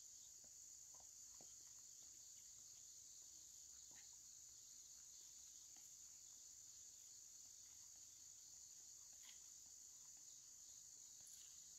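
Faint, steady chorus of insects such as crickets: a continuous high-pitched buzz, with a few faint ticks.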